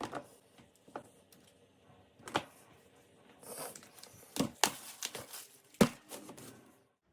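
Household objects being handled and set down: a series of sharp knocks and clicks at irregular intervals, with a brief rustle in the middle.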